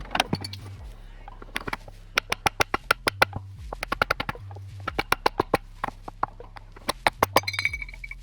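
Background music with a repeating bass line, over runs of quick, sharp taps and clicks from hand work on a garden rake. A brief high tone sounds near the end.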